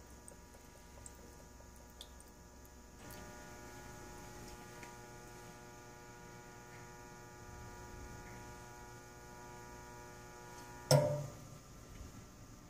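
Vertical autoclave's automatic water supply running with a steady electrical hum while it fills the chamber, switching on about three seconds in. Near the end there is a single sharp thump.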